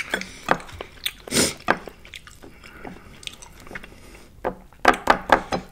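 Close-up mouth sounds of chewing battered fried food: wet chewing with scattered crisp crunches, and a quick run of loud crunches near the end.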